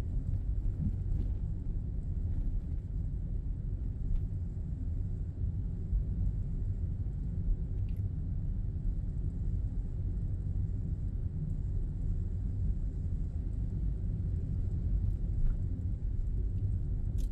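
Steady low rumble of a car's road and engine noise heard from inside the cabin while driving, with a few faint clicks.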